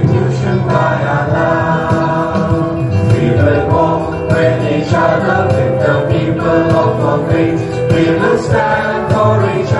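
A song with a group of voices singing together over instrumental backing, playing continuously.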